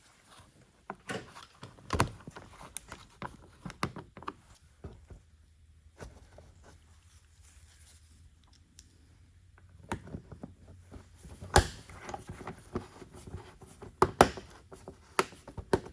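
Scattered clicks and knocks of plastic underbody-panel quarter-turn fasteners being pushed up and turned into place, with a quieter stretch in the middle.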